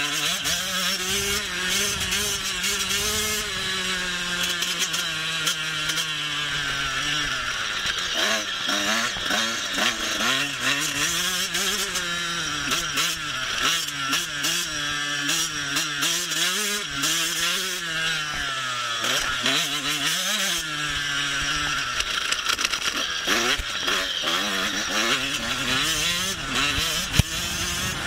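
Husqvarna TC 85 two-stroke motocross engine under way, revving up and dropping off over and over as the rider works the throttle and gears. A single sharp knock comes near the end.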